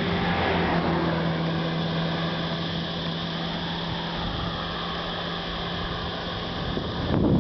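A pickup truck overtakes and pulls away ahead, its engine hum and tyre noise loudest about a second in, then fading with a slight drop in pitch. Wind buffets the microphone near the end.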